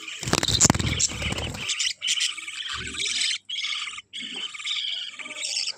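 Budgerigars chattering and warbling in quick, broken bursts of high chirps. About half a second in comes a loud rustling clatter that lasts just over a second.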